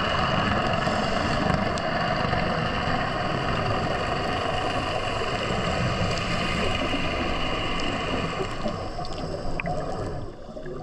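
Steady underwater ambient noise picked up by a diving camera: an even rushing hiss with a low drone and a few faint held tones, dropping quieter near the end.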